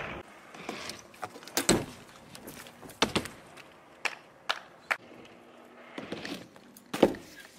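BMX bike riding on a concrete skatepark: tyres rolling, with a series of sharp knocks and clacks as the wheels land and strike the ramps. The loudest knocks come about a second and a half in and near the end.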